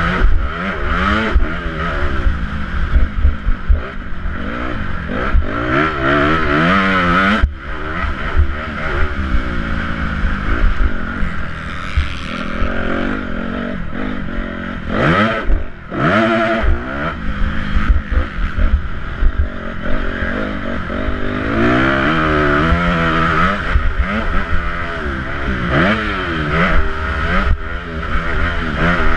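Motocross bike engine heard from the rider's helmet camera, revving up and down in repeated rising sweeps under hard acceleration, with wind buffeting the microphone. The throttle is briefly shut off twice, about a quarter of the way in and just past halfway.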